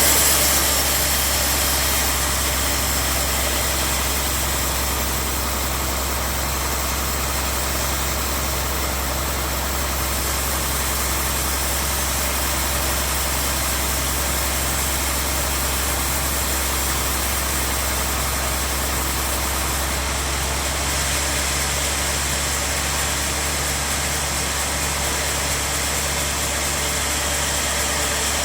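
Sawmill band saw running steadily: a constant low machine hum with an even hiss over it.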